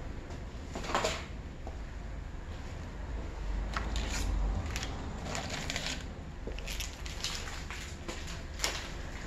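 Scattered light knocks and rustles of small paper packets being lifted out of a plywood tray organizer, a few separate clicks with the sharpest about a second in and near the end, over a low steady hum.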